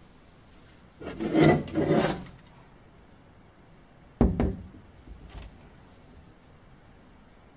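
Steel M40 helmet shell being handled and scraped against the workbench as it is picked up. There are two rubbing scrapes about a second in, then a short knock a little after four seconds, followed by faint handling noises.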